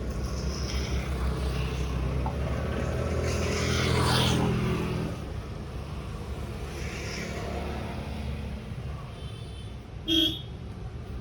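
Street traffic: a motor vehicle's engine rumbles past close by, loudest about four seconds in, then a short horn beep near the end.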